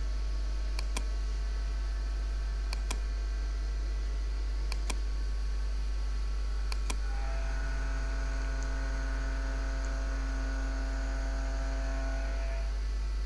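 Computer mouse clicks, four quick double clicks about two seconds apart, over a steady low electrical hum. From about seven seconds in, a steady pitched buzz joins the hum and stops shortly before the end.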